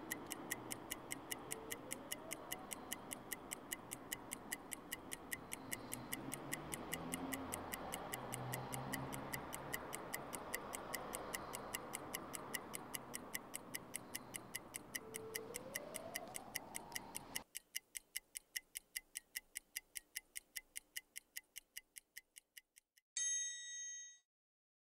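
Clock ticking steadily at about four ticks a second over a faint background. About seventeen seconds in the background cuts off and the ticking fades away, followed near the end by a single bright ding.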